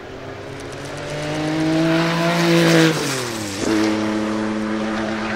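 Porsche 961 race car's 2.9-litre twin-turbo flat-six accelerating toward and past the listener, its note climbing and growing louder. About three seconds in the note drops sharply as the car goes by, then settles to a steady lower note as it pulls away.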